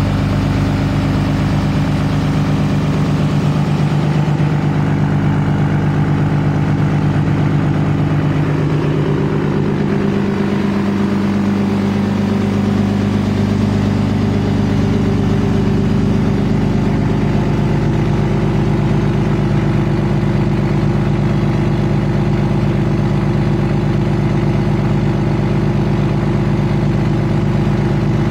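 A 2007 Dodge Ram 2500's 5.9-litre Cummins inline-six turbo diesel idles steadily in deep cold, warming up after a cold start, with its exhaust leaving through 7-inch stacks. Its tone shifts slightly higher about nine seconds in.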